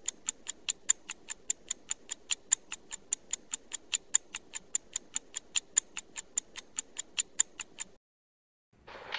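Steady clock-like ticking, about five sharp ticks a second over a faint hiss, that stops suddenly near the end; just before the end a different, noisier sound begins.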